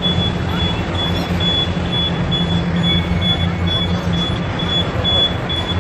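A repeating short, high-pitched electronic beep, about two a second, over a steady low drone of city noise.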